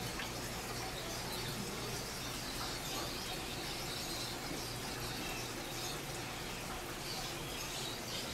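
Steady hum and hiss of aquarium equipment (filters and air pumps running on rows of fish tanks), with faint high chirps coming and going over it.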